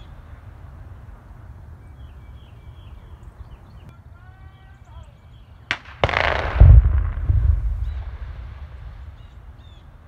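Dynamite blast a little before six seconds in: a sharp crack, then a deep boom that rumbles and dies away over about two seconds.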